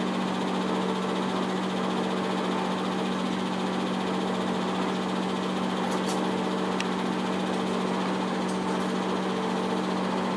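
Seventy-year-old 8 mm film projector running: a steady hum from its motor and fan with a low drone, and a few faint ticks past the middle.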